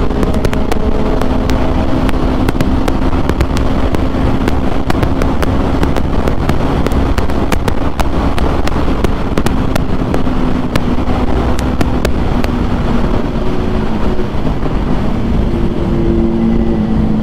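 Motorcycle ridden at a steady cruise, its engine note holding even under a loud rush of wind over the helmet-mounted microphone.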